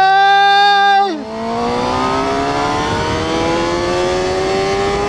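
Suzuki GSX-R600 inline-four engine accelerating hard, its pitch climbing steadily and unbroken, over wind rush. For the first second a loud, steady high note sits on top and cuts off about a second in.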